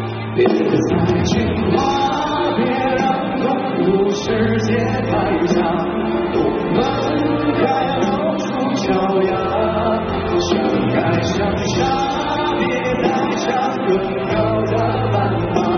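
Two male singers performing a pop ballad duet live over a full band, heard from the audience in a large hall. The music gets louder about half a second in.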